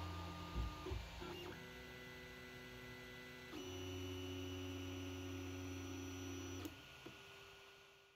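3D printer stepper motors whining as the print head and bed move, a set of steady tones that jumps to a new pitch every second or few as the moves change, fading out near the end.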